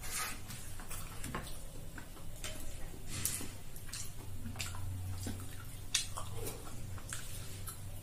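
Wet eating sounds of chewing and lip smacks: a string of irregular sharp clicks over a low steady hum.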